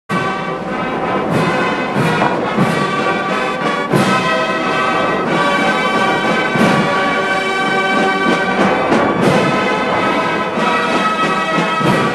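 Orchestral music with prominent brass, starting abruptly after a short silence, with strong accented chords every second or two.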